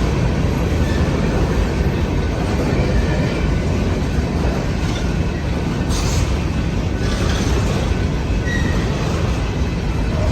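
Train passing a railroad crossing: a loud, steady rumble of wheels and cars on the rails, with a brief higher hiss about six seconds in.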